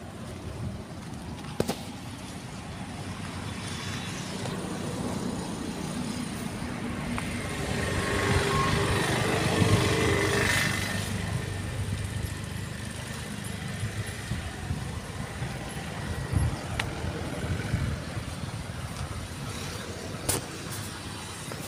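Engine noise from vehicles or machinery: a steady low rumble that swells to its loudest about nine to ten seconds in and then eases off, with a few sharp knocks.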